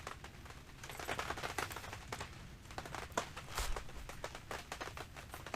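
Scattered light clicks and taps of hands working the brake pads into a motorcycle's rear brake caliper, with the pads being spread apart to fit.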